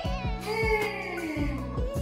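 Background music with a steady drum beat about two a second and held bass notes, with a pitched sound that slides down through the middle.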